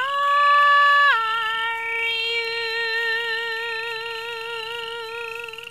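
A woman singing one long sustained 'O' in a Naga folk tune. She scoops up into a higher note, drops to a lower note about a second in, and holds it with a wide vibrato, fading slightly near the end.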